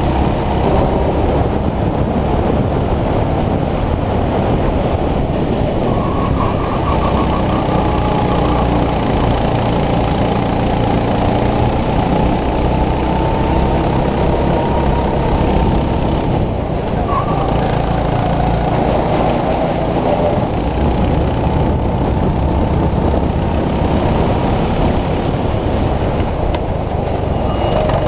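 Racing kart engine at full race speed, heard onboard, its pitch rising and falling as the kart goes through the corners.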